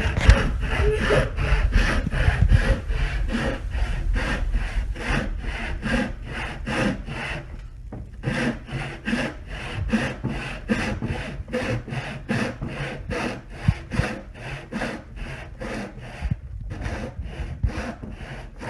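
Handsaw cutting wood in steady back-and-forth strokes, about two to three a second, with a short pause about eight seconds in.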